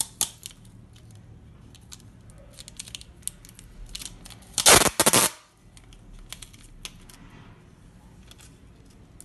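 Clear packing tape pulled off its roll in one short, loud crackling rip about four and a half seconds in, with scattered small clicks and ticks from the roll being handled before it.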